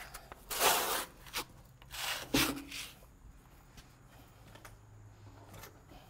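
Hand tools scraping across a freshly poured concrete overlay: two rough rasping strokes about a second and a half apart, then only faint scuffs.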